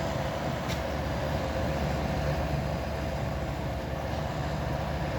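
1974 Amana dehumidifier running: its Tecumseh AE compressor on R12 and its fan giving a steady, very quiet hum. A faint click about two-thirds of a second in.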